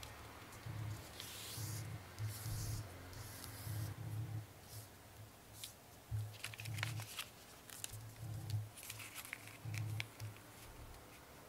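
Sheet of origami paper handled on a tabletop: rustling as it slides and is folded over, then sharp crinkles and clicks as creases are unfolded and pressed flat.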